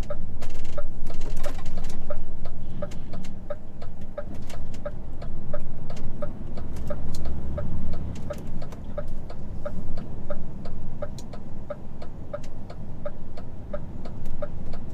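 Truck's turn-signal indicator ticking steadily inside the cab, about two ticks a second, over the low rumble of the diesel engine, which swells briefly midway.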